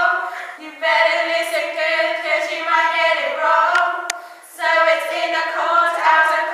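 Several girls' voices singing together unaccompanied, in long held notes, with short breaks about a second in and again about four and a half seconds in. A single sharp click comes just before the second break.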